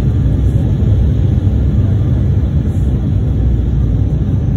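Steady low rumble of airliner cabin noise, engines and airflow heard from a window seat as the jet descends on final approach.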